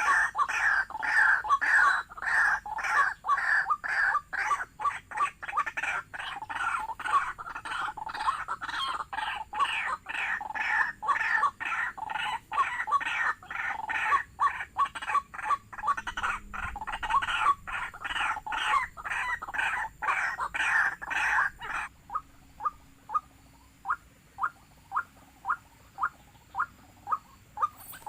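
White-breasted waterhen calls: a dense, fast run of repeated notes that breaks off abruptly about three-quarters of the way through. After the break only single thin notes continue, about two a second.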